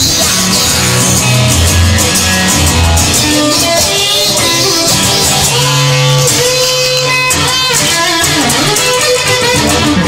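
Music led by electric guitar over low bass notes, with a few notes sliding in pitch in the second half.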